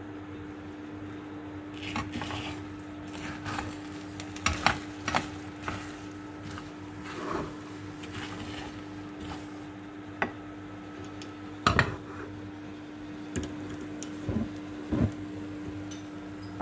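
Spatula scraping and stirring frying egg with shrimp and leek in a frying pan as the egg sizzles. Irregular scrapes and knocks of the spatula on the pan come over a steady low hum, the loudest about five and twelve seconds in.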